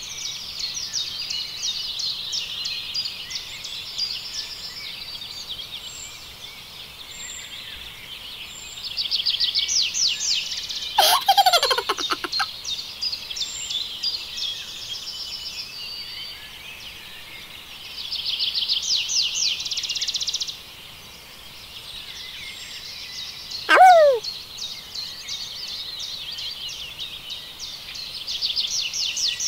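Many birds chirping and trilling in quick repeated runs, with two short, sharply falling calls: one about eleven seconds in and a louder one near twenty-four seconds.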